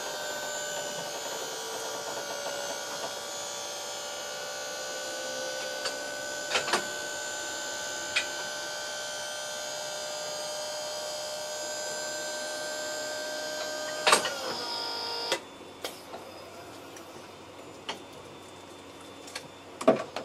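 Electric hydraulic scissor lift's pump motor whining steadily as it raises a small car, with a couple of sharp clicks along the way. The whine wavers near the end and cuts off about fifteen seconds in, leaving only faint ticks.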